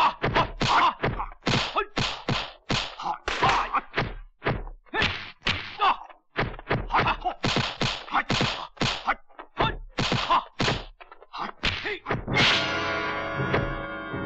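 Rapid run of kung fu film punch and block sound effects: sharp whacks about three or four a second as two fighters trade hand strikes. About 12 seconds in, the hits stop and music comes in with a crash.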